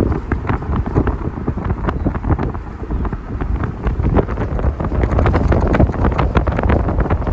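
Wind buffeting the microphone from a moving pickup truck, over a steady low rumble of road noise; it gets louder a little past halfway.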